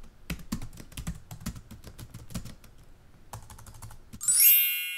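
Computer keyboard typing: a fast, uneven run of key clicks. About four seconds in the typing stops and a loud, bright chime rings out and slowly fades.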